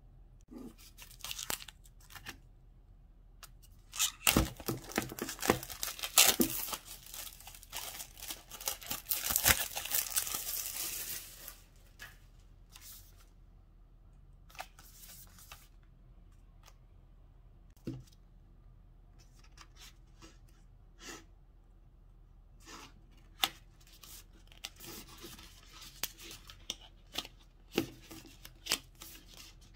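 Clear cellophane shrink-wrap being torn and peeled off a cardboard box: a dense crackling run from about four to eleven seconds in, then scattered light crinkles and taps as the box is handled.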